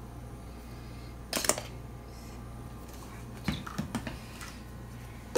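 A spoon clicking and knocking against a saucepan in two short clusters, about a second and a half in and again around three and a half seconds, over a steady low hum.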